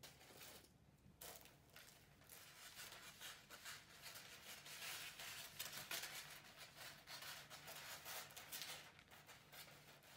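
Wrapping paper being handled, crinkling and rustling with many small crackles. The sound starts about a second in and dies down near the end.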